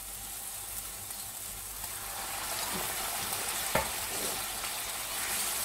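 Onion-tomato masala frying and being stirred in a non-stick pan with a wooden spatula. The sizzle grows louder about two seconds in as hot water is poured in, with a sharp knock near four seconds in.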